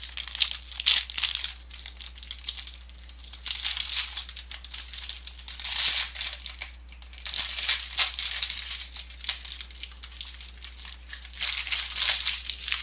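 A trading card pack's plastic wrapper being torn open and crinkled by hand, in several bursts of crackling and rustling.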